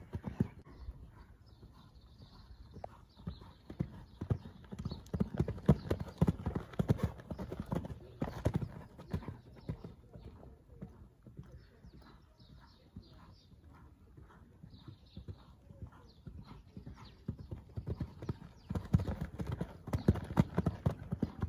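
A pony's hooves cantering on a sand arena surface, a rhythmic run of dull thuds. They are louder while it passes close, fade as it goes to the far end of the arena about ten seconds in, and come back loud near the end.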